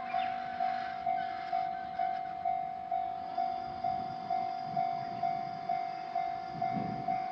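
Railroad crossing warning bell ringing, a single steady tone repeating about twice a second.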